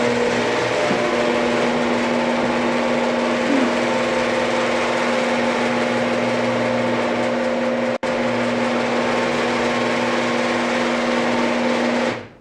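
Genie screw-drive garage door opener running and driving the door along its screw rail: a steady motor hum with a drone from the spinning screw. It stops suddenly near the end, with a split-second break about eight seconds in.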